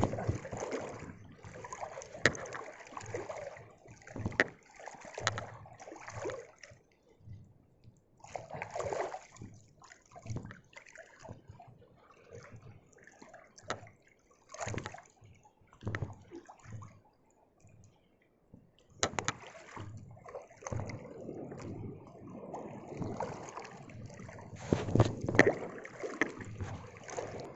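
Sea waves washing and sloshing in irregular surges around someone wading in rough surf, with many short knocks and scrapes mixed in.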